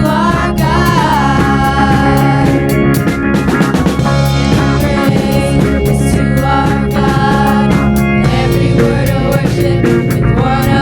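Rock-style band music with a drum kit keeping the beat and a melody line gliding above it.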